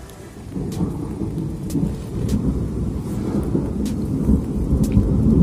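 Distant thunder: a low rolling rumble that sets in about half a second in and grows louder, with a few sharp ticks over it.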